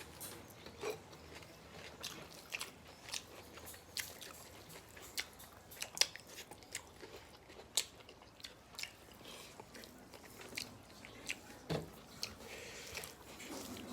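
Close-up eating sounds: chewing and lip smacks while eating rice with mashed eggplant, as a series of short, irregular wet clicks.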